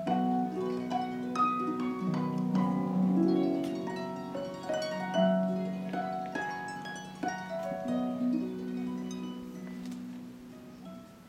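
Concert pedal harp played solo: a run of plucked notes over ringing low bass notes, growing softer over the last few seconds.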